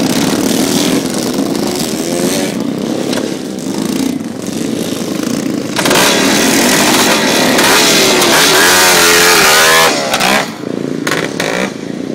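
Vintage motocross motorcycle engines running and being revved. About halfway through one gets much louder, its revs climbing and falling several times for about four seconds, then the sound drops back suddenly.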